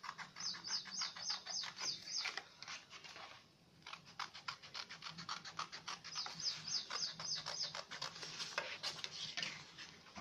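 Scissors snipping through craft paper along a drawn circle, quick short cuts several times a second, with a brief pause about three and a half seconds in.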